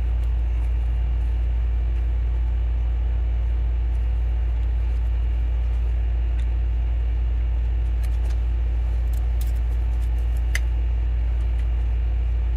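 Steady low hum with a few faint, short ticks of a thin pry tool working a phone's screen free of its frame.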